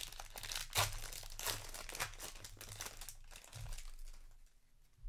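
Plastic wrapper of a Magic: The Gathering set booster pack crinkling and tearing as it is pulled open by hand, busy for about three seconds and then quieter as the cards come out.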